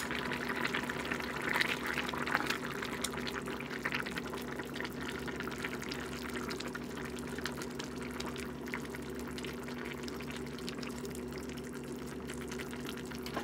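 Soy-and-tomato squid adobo sauce bubbling at a steady simmer in a wok as it reduces, a dense crackling bubble, a little louder about two seconds in.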